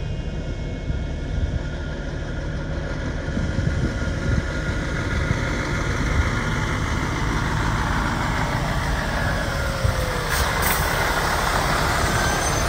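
Tatra rally sweeper truck's diesel engine running as the truck drives slowly in, its note dropping as it slows, with a brief hiss about ten seconds in.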